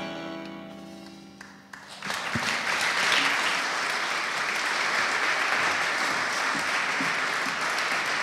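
The last chord of a small band with accordion and electric guitar rings out and fades away, then the audience breaks into steady applause about two seconds in.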